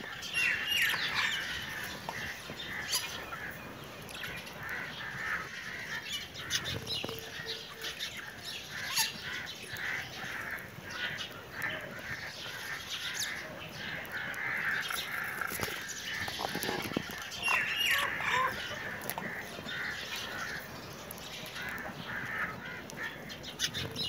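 Budgerigars chattering and warbling: a continuous stream of short chirps and clicks, with a few sharper, louder calls.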